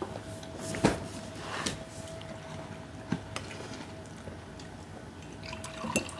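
Scattered light knocks and clinks of dishes and utensils on a table, the sharpest about a second in and a few more near the end, over a faint steady hum.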